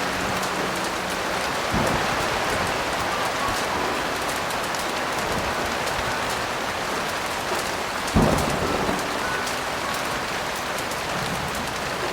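Heavy rain falling steadily, with thunder: a low rumble about two seconds in and a louder, sudden clap about eight seconds in that dies away within a second.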